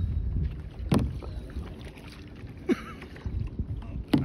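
Hand-paddling on an inflatable paddleboard: three sharp water slaps or knocks about a second and a half apart, over a low wind rumble on the microphone that fades after about a second.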